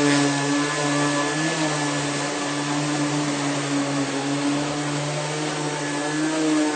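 Rainbow water-filter vacuum cleaner running steadily while it cleans a mattress: a constant motor hum with a rush of air. The pitch wavers slightly about a second and a half in.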